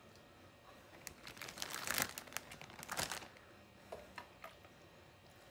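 Plastic zip-top bag crinkling as it is held open and handled, a dense crackle lasting about two seconds, then a few short, lighter rustles.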